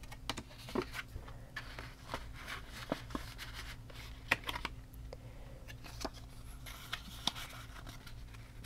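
Paper cash envelopes and clear plastic sleeves being handled on a table: light rustling with scattered soft clicks and taps, over a faint steady hum.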